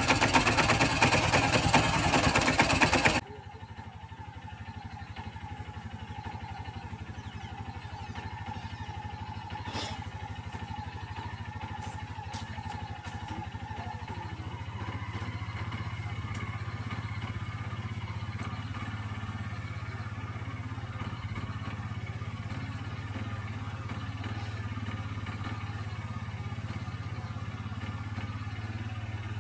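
Vehicle engine idling: loud and fast-pulsing close by for about three seconds, then dropping sharply to a quieter, steady low engine hum.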